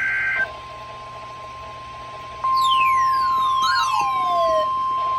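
NOAA Weather Radio test broadcast. A SAME digital header data burst ends just after the start. About two seconds later the steady 1050 Hz weather radio warning alarm tone comes on, a single loud pitch that holds to the end.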